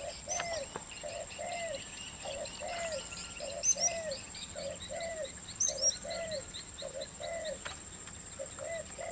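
Birds calling: a low, arched call repeated about twice a second, with small birds chirping higher above it and a steady high-pitched insect drone underneath.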